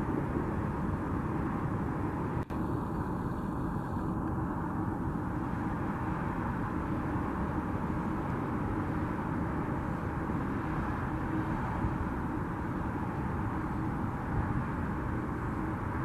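Steady jet airliner engine noise, a continuous even roar, with a momentary dropout about two and a half seconds in.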